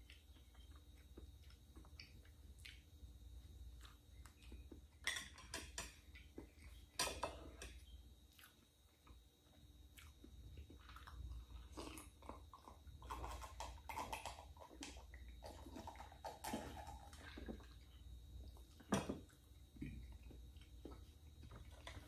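Close-miked eating of chocolate cake: quiet chewing and mouth sounds, with a few sharp clicks of a fork, the loudest about five, seven and nineteen seconds in. Through the middle comes a denser run of drinking sounds from a glass of iced drink.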